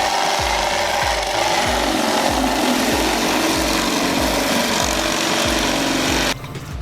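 Motorized ice shaver running as it shaves ice for chendol, a loud steady grinding that cuts off suddenly near the end. Background music with a steady beat plays underneath.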